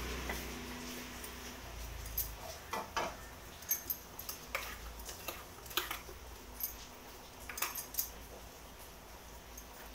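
A metal spoon clinking against a small steel pot: about a dozen light, sharp clinks at uneven intervals. A low hum fades out in the first two seconds.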